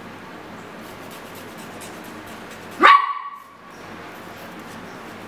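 A single short, sharp animal squeal about three seconds in, rising steeply in pitch and then holding a high note for a moment, over a steady low hiss.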